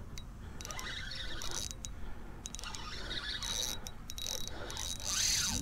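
Fishing reel clicking in short, irregular runs while a hooked fish is fought on the line.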